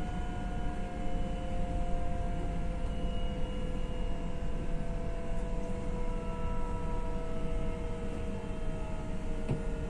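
Newag Impuls 2 (31WEbb) electric multiple unit heard from inside the passenger car: the traction motors whine in several steady tones that slowly fall in pitch as the train eases its speed, over a low rumble of wheels on the track.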